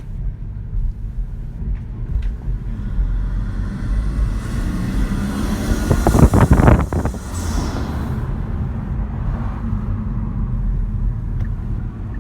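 Kia Stinger 2.0T driving, its engine and road noise heard as a steady low rumble from inside the cabin. About halfway through, a louder rushing swell builds, peaks and dies away.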